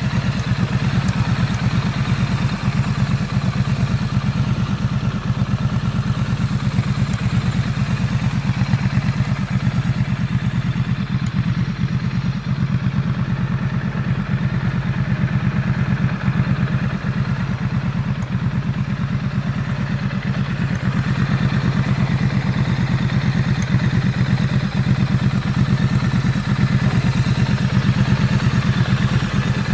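Triumph Bonneville Street Twin's 900 cc parallel-twin engine idling steadily.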